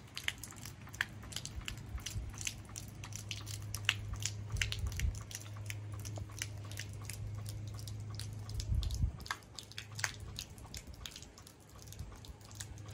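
A homemade PVC hydraulic ram pump model running, giving many quick, irregular clicks and wet ticks from its valves and water, over a steady low hum.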